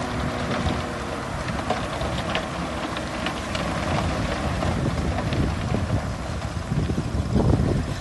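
Diesel engines of heavy earthmoving machinery, a tipping dump truck and bulldozers, running with a low, uneven rumble, with wind buffeting the microphone.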